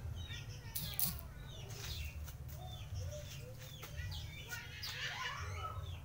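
A small owl flapping its wings while hanging by its tether, with sudden flurries of wingbeats about a second in and again near the end. Small birds chirp throughout.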